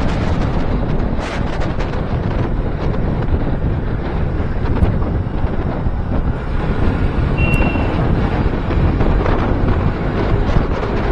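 Heavy wind buffeting the microphone of a moving motorcycle: a steady low rush, with engine and road noise buried underneath. A brief high tone sounds about seven and a half seconds in.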